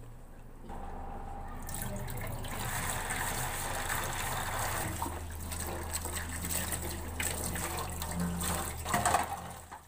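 Water from a kitchen tap running onto plates in a stainless-steel sink as they are rinsed by hand, starting about a second in and briefly louder just before it cuts off.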